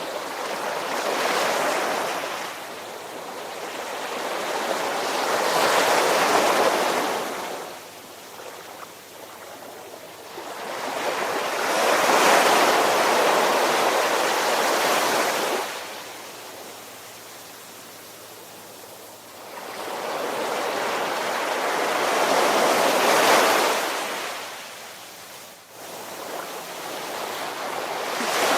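Ocean waves washing in and drawing back in slow swells, about five surges that each rise and fade, one of them longer, held for a few seconds.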